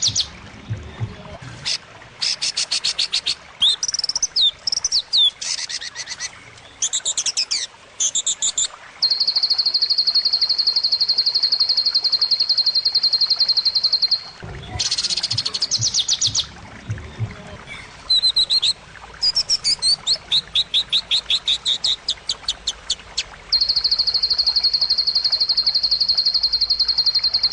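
Birdsong from a masteran tutoring track for white-rumped shamas: varied high whistles and fast chattering phrases alternating with long, even high trills, each held for about four to five seconds.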